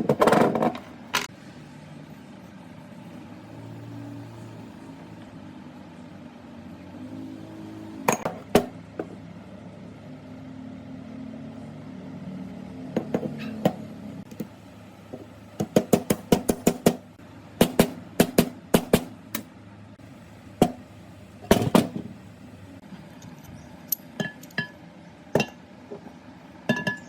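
Sharp metallic knocks and clinks, in scattered clusters, over a steady low mechanical hum.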